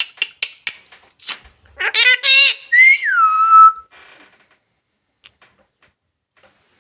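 Pet parrot vocalising: a run of sharp clicks, then a short wavering trill and a clear whistle that swoops up and then drops to a lower held note.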